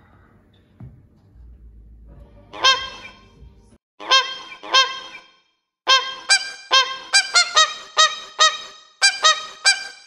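A string of goose-like honks from the toy swan heads on a swan-covered chair. A few single honks come first, then a fast rhythmic run at two slightly different pitches.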